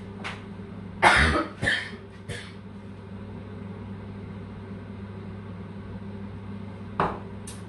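A woman coughs three times in quick succession, then a steady low hum runs on for several seconds. Two short sharp sounds come near the end.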